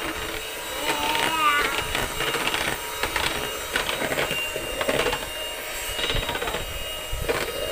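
Electric hand mixer running as it beats butter in a bowl, its motor whining steadily while the beaters clatter against the bowl in quick irregular clicks.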